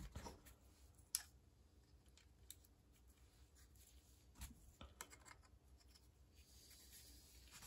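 Faint clicks of plastic model car wheels being pushed onto the axle stubs of a 1/24 scale plastic kit chassis, against near silence. There are a few short clicks, the sharpest about a second in.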